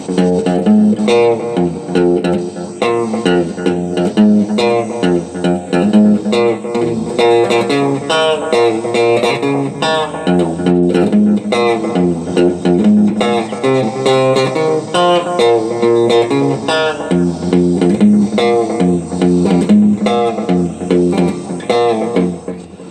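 Guitar played over a looper pedal: layered, repeating plucked guitar parts sound together in a continuous run of notes that stops just before the end.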